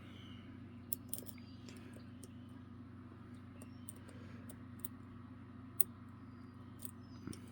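Scattered small metallic clicks of a lock pick and tension tool working the pins of a Godrej Scorpio dimple lock, a few sharp ticks spaced seconds apart over a steady low hum.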